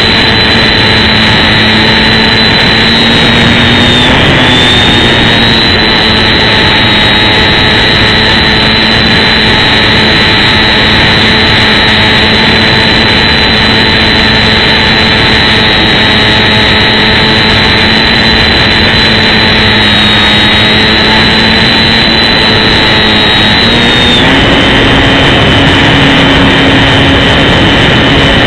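Electric motor and propeller of an XK DHC-2 Beaver RC plane, heard up close from a camera on the airframe: a loud steady drone with a high whine over a noisy wash. The pitch wobbles briefly about four seconds in and shifts again near the end.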